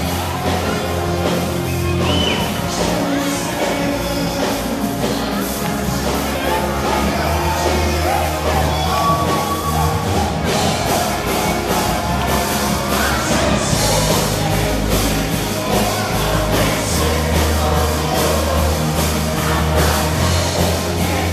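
Live Christian worship band playing a rock-style song: drums, a heavy bass line, electric guitar and singing, loud and continuous.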